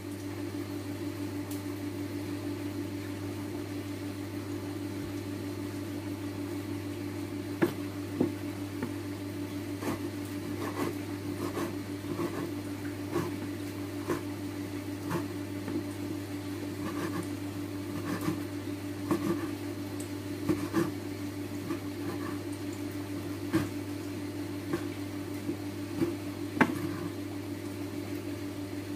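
Chef's knife chopping boiled pork on a wooden cutting board: irregular sharp taps of the blade striking the board, about one a second, over a steady low electrical hum.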